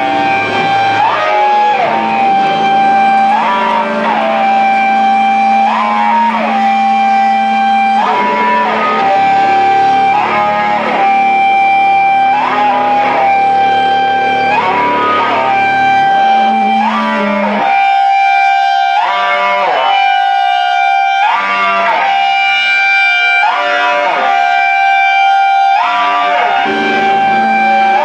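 Electric guitar played live through an amp and effects, a repeating riff: a held high note with a slide up and back about every one and a half seconds. Lower notes underneath stop about two-thirds of the way in, leaving the high figure alone, with no drums.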